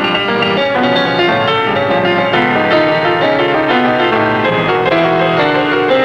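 Piano music in the style of a silent-film accompaniment, a continuous run of notes over chords.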